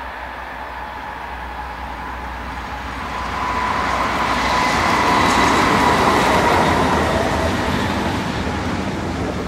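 DB class 218 diesel-hydraulic locomotive hauling double-deck coaches past, its running sound carrying a steady whine. The sound grows louder, peaks a little past halfway as the locomotive goes by, then eases as the coaches roll past.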